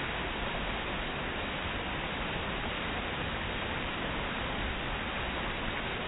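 Water cascading over the ledges of a stepped stone waterfall, a steady, unbroken rush.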